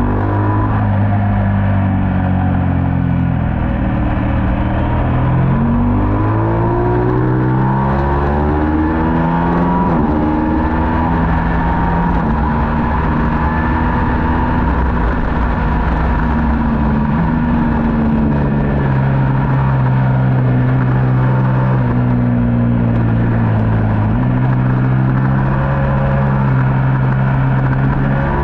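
Middleweight superbike racing motorcycle engine at race pace, its pitch climbing under acceleration and stepping up and down with gear changes and throttle.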